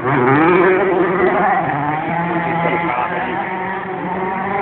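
Rally car engine revving hard, its pitch rising and falling repeatedly as the driver works through the gears.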